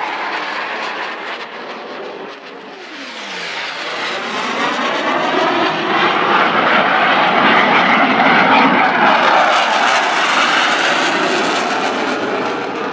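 Blue Angels F/A-18 Hornet jets flying past: a falling whine a few seconds in as one jet pulls away, then jet roar building to a loud peak around the middle and easing off toward the end.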